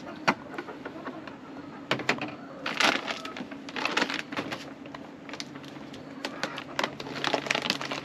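Handling noises: irregular clicks of plastic and the crinkling of a plastic bird-seed bag as it is picked up and opened.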